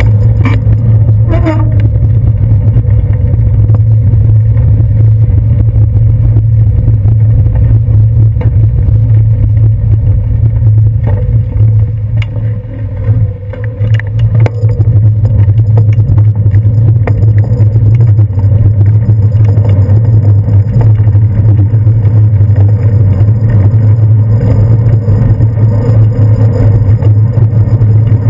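Bicycle riding along a city street, heard through a handlebar-mounted GoPro Hero 2: a loud, steady low rumble of wind and road vibration with a few knocks from bumps. It eases for a couple of seconds about halfway through. A brief rising squeal sounds near the start.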